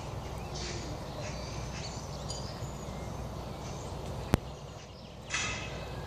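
Steady low rumble with faint bird chirps in the background. A single sharp click comes just after four seconds in, and a short loud call about five seconds in.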